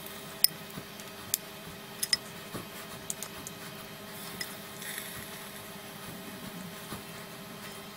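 Marinated chicken pieces being set one by one onto the wire mesh grill of an air fryer basket: a few light clicks and soft wet taps, most of the sharper clicks in the first couple of seconds, over a faint steady hum.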